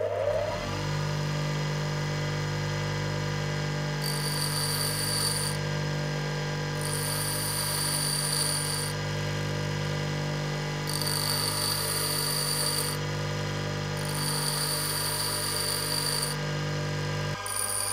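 Bench grinder motor running with a steady hum while a twist drill bit is pressed against its white grinding wheel in four passes of a second and a half to two seconds each. Each pass gives a high grinding rasp as the bit's point is sharpened by conical grinding.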